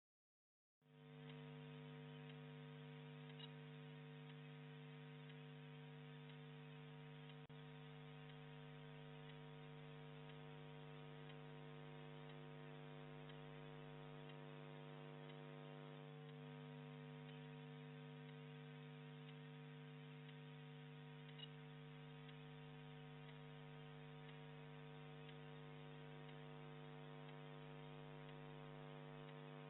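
Faint, steady electrical mains hum, a low buzz with several constant tones, coming in about a second in after dead silence and running unchanged. No sounds of play are heard over it.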